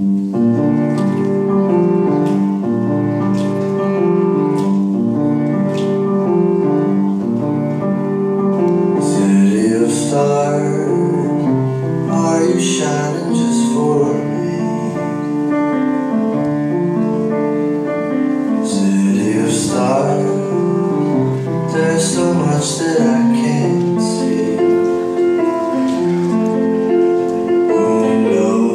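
Music with piano and singing, starting suddenly right at the beginning and staying loud and full.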